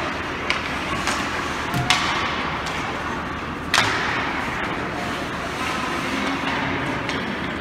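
Ice hockey rink ambience: a steady arena hum with faint voices, and two sharp cracks from play on the ice, about two and four seconds in.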